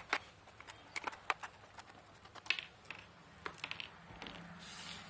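Light, scattered clicks and taps of a screwdriver and small screws against the plastic base of a rechargeable LED table lamp as its base screws are taken out, then a soft scraping near the end as the plastic base is handled.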